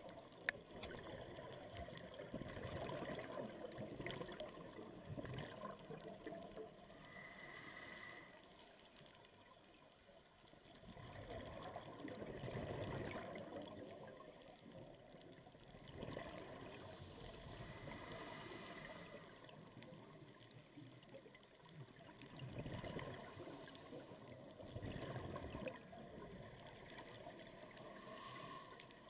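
Scuba diver breathing through a regulator underwater: three short hissing inhales about ten seconds apart, each followed by a few seconds of bubbling exhaust from the regulator.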